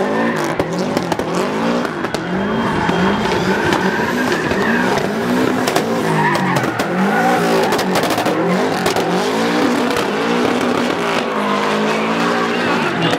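Subaru WRX STI drift car with its engine revving hard, the pitch climbing and dropping again about once a second. Its tyres squeal as it slides sideways.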